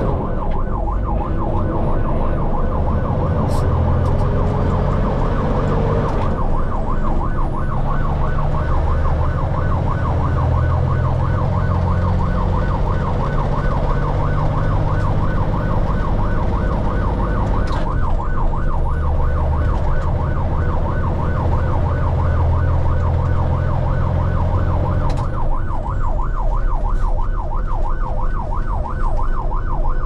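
Rotator tow truck's electronic siren sounding a fast, steady yelp that rises and falls several times a second, heard from inside the cab. The truck's engine runs underneath it.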